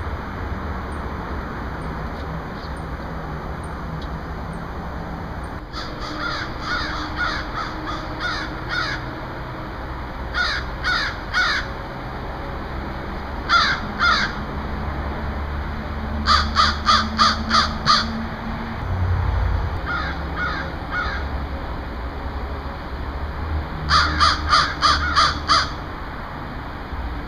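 Crows cawing in runs of quick, evenly spaced caws, two to eight at a time, several runs a few seconds apart, over a low steady rumble.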